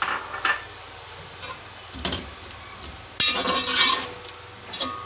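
Metal ladle scraping and knocking against the side and bottom of a metal cooking pot while stirring sliced onions in oil, in several short bouts, the longest and loudest a little past halfway, with some metallic ringing.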